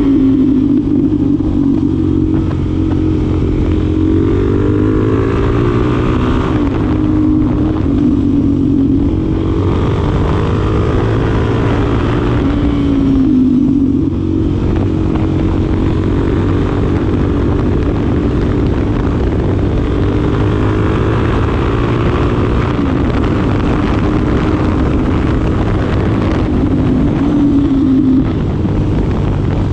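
2025 Suzuki DR-Z4SM supermoto's single-cylinder engine running under way, its revs climbing and dropping back several times, with wind noise behind it.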